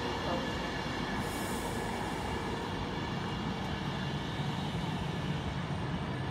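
Virgin Trains Class 390 Pendolino electric train running along the platform as it pulls into the station, a steady noise of wheels on rail with a brief high hiss about a second in.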